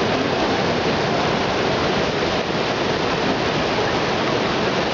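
Waterfall: a dense, steady rush of falling water.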